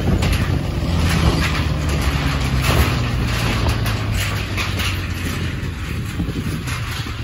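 Motorbike engine running at low riding speed, a steady low hum that eases off a little toward the end, with frequent short rattles and knocks over it.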